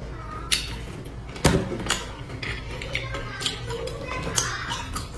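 Tableware clicking and knocking: a ceramic mug and chopsticks against ceramic dishes, with one loud knock about a second and a half in and lighter clicks after it, over a steady low hum.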